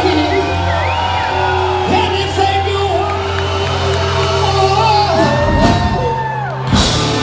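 Live rock band playing with a singer, with whoops and shouts from the crowd.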